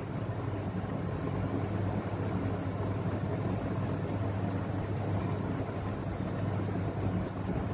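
A steady low machine hum with a constant rumble beneath it, holding an even level throughout.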